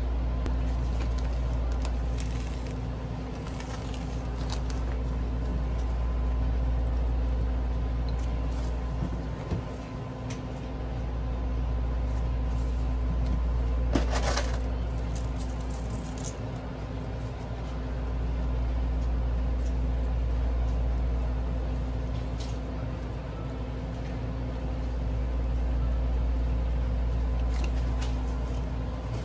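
Steady low machine hum with a deep rumble that swells and fades every six or so seconds, and a few light handling clicks, one sharper about halfway through.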